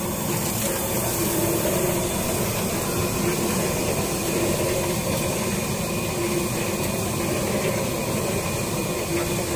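Puffed-rice (muri) making machine running steadily: its motor and rotating perforated steel drum sieve give an even mechanical rushing noise with a low hum through it.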